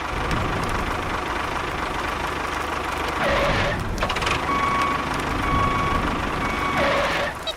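Engine of a mini construction vehicle running with a steady, noisy rumble. From about four seconds in, a reversing alarm beeps about once a second.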